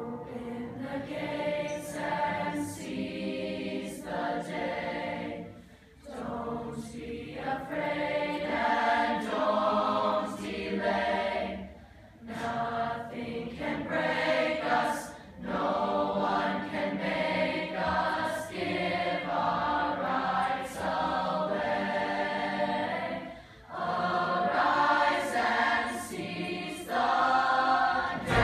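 Middle school show choir singing together over musical accompaniment, in phrases broken by three brief pauses.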